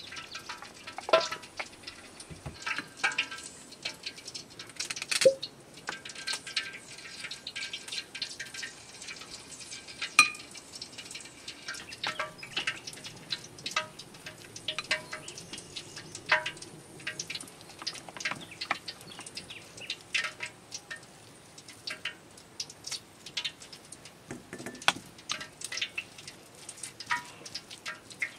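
Metal spoon clinking and scraping against a small glass bowl while mixing a chilli spice paste: irregular sharp clinks that ring briefly, the loudest about a second in, near five seconds and near ten seconds.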